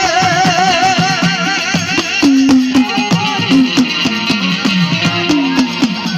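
Instrumental music led by a plucked Indian banjo (bulbul tarang), with a steady percussion beat; a wavering held note sounds over the first second, then short plucked notes take over.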